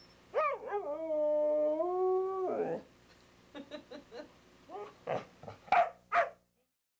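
Dog howling: one long howl that rises sharply, wavers, then holds a steady pitch for about a second and a half. It is followed by a few short, broken calls, the last two louder, before it stops suddenly.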